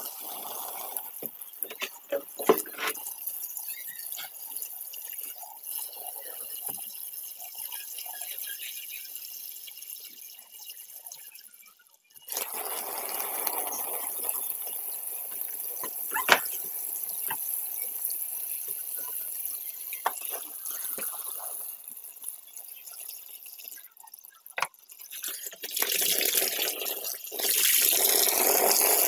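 A stream of water pouring into a shallow inflatable paddling pool, splashing and pattering onto the thin layer of water over the plastic floor, with scattered drips. It breaks off briefly about twelve seconds in and resumes louder, then grows louder again near the end.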